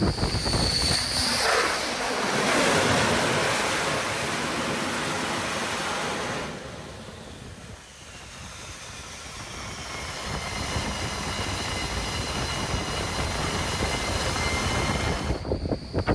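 Roar of a MiG-29K fighter's twin jet engines, with a thin high turbine whine over it. The roar is loud at first, dies down about halfway, then builds again with the whine growing.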